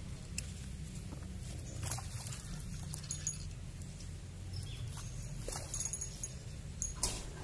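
A hooked fish splashing and thrashing at the surface of a pond, with several short sharp splashes, the loudest near the end. A few brief high chirps and a steady low rumble run underneath.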